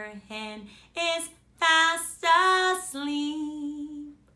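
A woman singing a children's counting song in a single voice, phrase by phrase.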